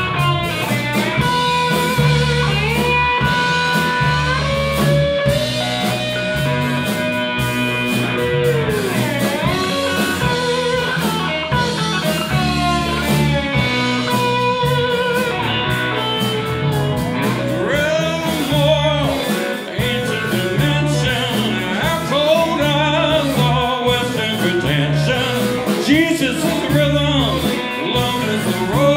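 Live blues-funk band playing an instrumental passage: electric slide guitar leads with gliding, wavering notes over bass guitar, drum kit and keyboards.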